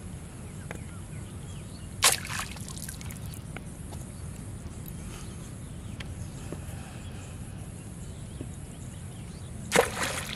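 Two short water splashes as a fishing line is jerked up out of a canal, one about two seconds in and a louder one near the end, over a low steady background noise.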